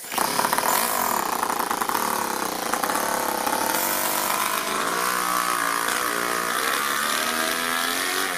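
Toyan FS-L200 two-cylinder four-stroke model engine on nitro fuel catching and running as soon as the push-button starter is used, its revs rising and falling as the RC crawler drives off. The engine is running a little rich.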